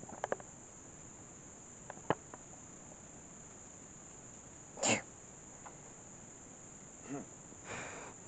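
Steady high-pitched insect chorus, with a few faint clicks near the start and again about two seconds in, one short sharp burst of noise about five seconds in, and a brief rustle near the end.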